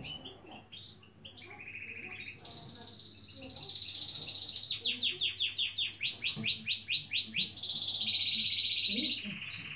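A caged finch singing one long, unbroken song after a few short chirps: rolling trills held at one pitch, breaking in the middle into a run of about a dozen quick down-slurred notes, then trilling again to the end.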